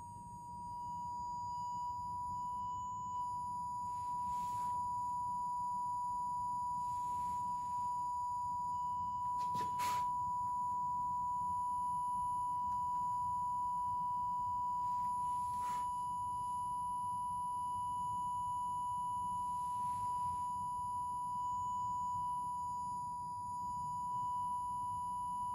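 Loudspeaker driving a resonance tube with a steady sine tone near 1 kHz. Over the first two seconds the pitch rises slightly and the tone grows louder as it is tuned to about 984 Hz, the tube's fourth resonance (n = 4), then it holds. There are a few faint short hisses and a click about ten seconds in.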